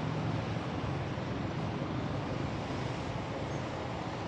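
Steady city street traffic noise: motorbikes and cars running along the road, with no single passing vehicle standing out.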